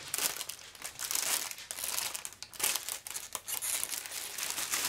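Clear plastic bag crinkling as it is handled and opened by hand: irregular crackly rustles that come and go.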